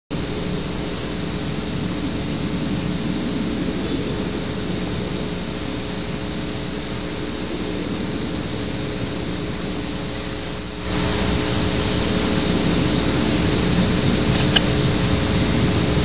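Steady electrical hum and hiss from a nest-box camera's microphone, with no owl calls. It gets a little louder about eleven seconds in.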